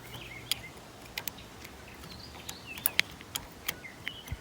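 Irregular sharp clicks and clinks of a tool on metal, the pump assembly's bolts being worked on, with birds chirping faintly in the background.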